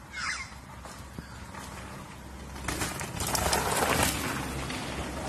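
A bird chirps a few times, then a rushing noise, as of a ride on a dirt trail, swells about three seconds in and stays loud.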